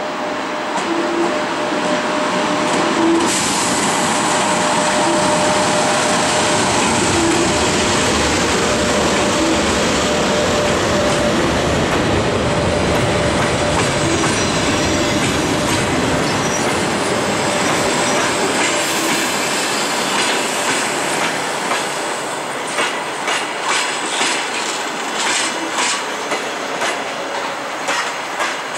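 EP1M electric locomotive and its passenger coaches rolling past on arrival at a station. The passing locomotive gives a steady rumble with a held tone that fades away midway. As the coaches go by, their wheels clack over the rail joints, distinct clacks in the last third.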